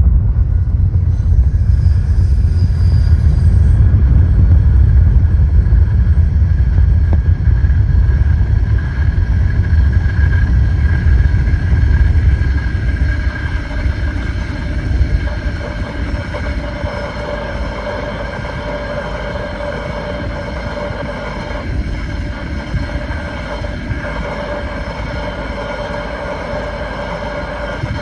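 A DL class diesel-electric locomotive and its train pass close by. A heavy low rumble eases about twelve seconds in to a quieter, steady rolling of the following wagons, with steady high-pitched tones above it.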